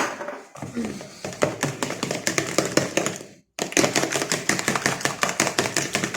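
Hand whisk beating cake batter of eggs, oil and yogurt in a bowl: fast rhythmic clicking of the wires against the bowl, stopping briefly about halfway through, then resuming.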